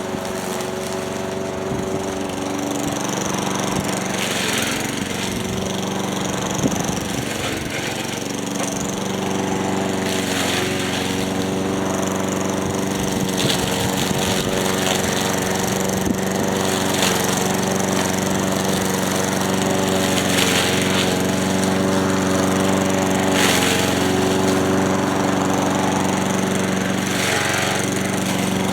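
Craftsman walk-behind lawn mower's small single-cylinder engine running steadily at high speed while mowing, with short swishing bursts every few seconds. The carburetor has just been rebuilt and the mixture is not yet fine-tuned; high speed is set by ear near 3,000 rpm.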